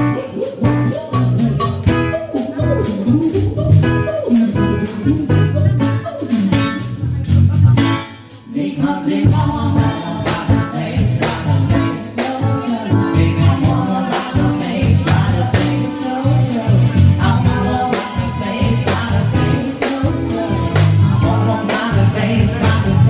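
Live band playing an upbeat dance number: a steady drum-kit beat with guitar and a singer. The music drops out for a moment about a third of the way through, then comes back in.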